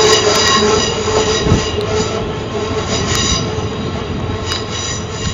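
South Western Railway Class 450 Desiro electric multiple unit drawing away along the platform. It gives a rumble with a steady high whine from the wheels and motors and a few sharp clicks from the rails, fading as it moves off.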